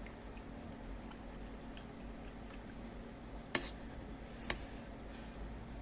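Quiet eating of seblak: soft chewing, with two sharp clicks about a second apart in the middle, over a steady low hum.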